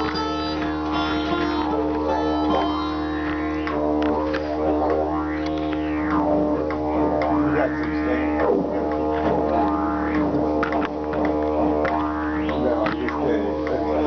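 Live instrumental music: a steady low drone with overtones that sweep up and down, vowel-like, every second or two.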